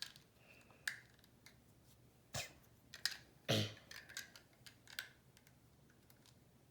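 Plastic Lego bricks clicking and clattering as pieces are sorted out and pressed together, a handful of separate sharp clicks.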